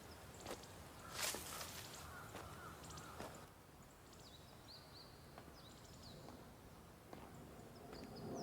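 Faint outdoor ambience with a few short, high bird chirps in the middle and again near the end, and a few soft knocks or steps in the first three seconds.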